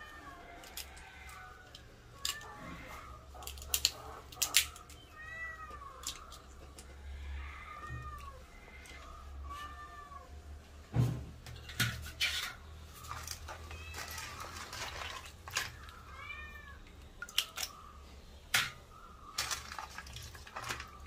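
A cat meowing again and again in short rising-and-falling calls, over the sharp clicks and knocks of raw crab shells being cracked and pulled apart by hand in a bowl of water.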